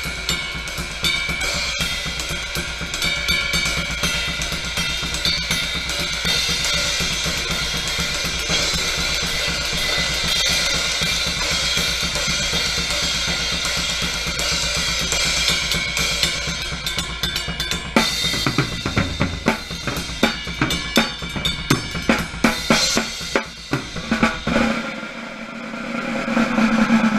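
Drum kit being played, with cymbals and hi-hat washing over snare and bass drum, recorded through a GoPro Hero 3 camera's closed waterproof housing on the kit. Toward the end the playing breaks into separate hard hits and then drops away.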